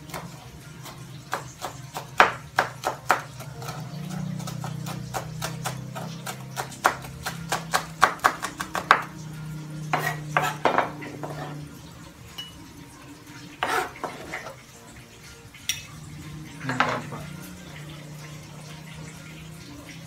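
Chef's knife chopping spring onions on a plastic cutting board: a quick run of sharp knocks for about the first nine seconds, then scattered taps. A steady low hum runs underneath.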